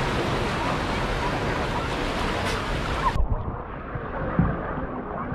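Pool water splashing and churning as a bull Asian elephant plunges in and swims. About three seconds in the sound turns suddenly muffled, with a few dull sloshes after.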